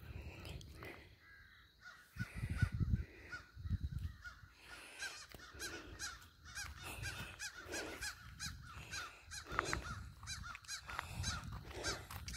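Crows cawing over and over, a quick run of short calls that builds from about five seconds in. A few low thumps come around three seconds in.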